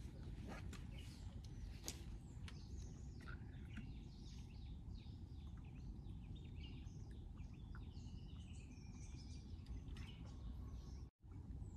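Several wild birds chirping and calling on and off in dry forest, short scattered notes over a steady low rumble of background noise. The sound cuts out for a moment near the end.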